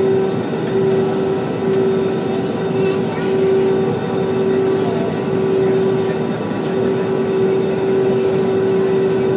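Cabin noise of an Airbus A320-family airliner taxiing: a steady rush of engine and air-conditioning noise with a constant hum throughout, and a small click about three seconds in.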